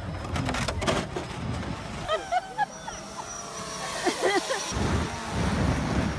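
Scattered shouts and calls of people on a sled hill, short rising and falling cries around two seconds in and again about four seconds in, over a low wind rumble on the microphone that drops away in the middle.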